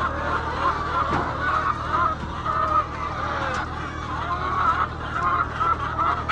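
A large flock of chickens clucking and calling all at once, many overlapping short calls without a break, over a steady low hum.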